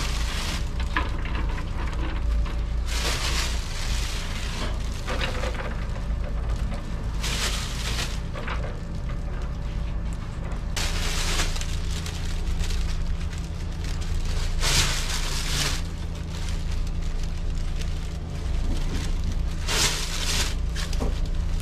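Handfuls of beans, sliced chestnuts and jujube strips scattered onto paper-lined metal steamer trays for rice cake, coming as short bursts of noise about every four seconds, each lasting about a second. Under them runs a steady low hum from the shop's machinery.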